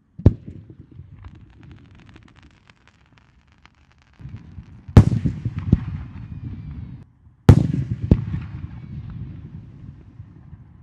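Aerial firework shells bursting: three loud bangs, near the start, about five seconds in and about seven and a half seconds in, each followed by a rapid crackle and a low rumbling fade, with a smaller pop shortly after the second and third bangs.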